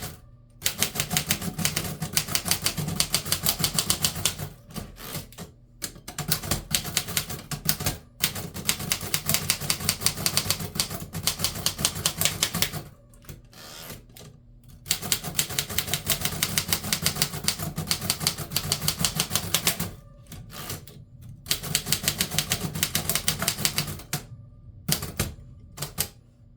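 1920s Remington Remette manual portable typewriter being typed on fast, rapid keystrokes in several long runs broken by short pauses.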